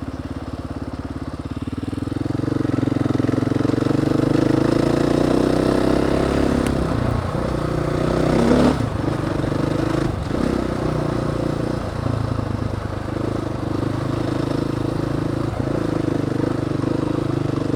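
Dirt bike engine running under way, getting louder about two seconds in, with several brief dips in the engine note as the throttle eases off.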